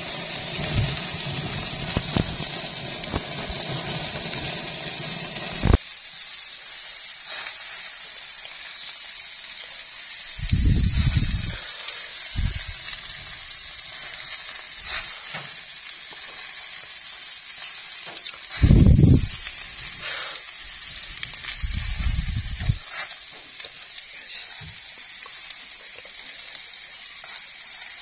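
Wild boar meat and fat sizzling on a wire grill over an open wood fire, with small sharp crackles from the fire. The sound drops abruptly about six seconds in, and a few short low thuds come and go.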